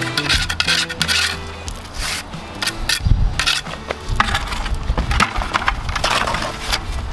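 A metal pointing tool scraping and raking wet mortar in the joints between stones, in a series of irregular gritty strokes.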